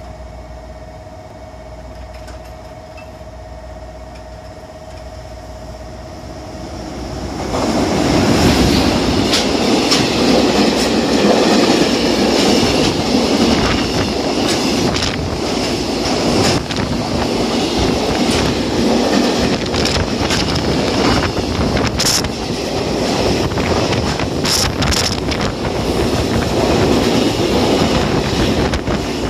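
A JR Freight container train hauled by an EH500 electric locomotive passes through a station without stopping. The first seconds are quieter, with a faint steady tone; about seven seconds in the noise jumps as the train arrives, then the wagons run past in a continuous loud rumble and rattle of wheels on rail, with a few short sharp sounds in the second half.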